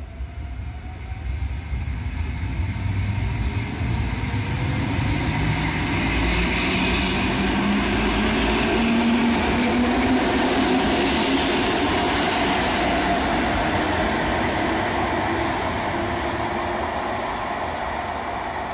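Electric multiple-unit passenger train running in along an enclosed underground station platform: rolling noise grows louder as it comes close and passes, with a whine that rises in pitch. The sound peaks about halfway through, then eases a little as the train moves on.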